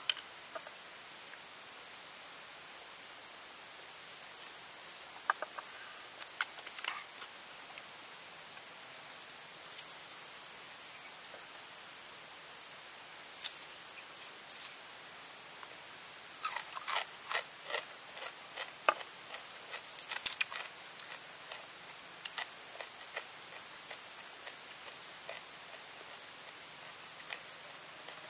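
A steady high-pitched insect drone in the forest, with scattered crisp snaps and crunches from deep-fried snake being broken apart and eaten, most of them in a cluster past the middle.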